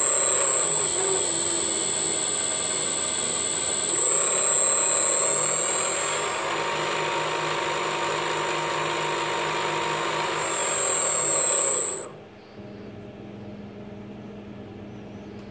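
Turnigy Aerodrive SK3 brushless outrunner motor, run by an ESC, driving the mini-lathe spindle through its gears with a steady high-pitched whine. It eases off a little about four seconds in, picks up again near eleven seconds, and cuts off about twelve seconds in.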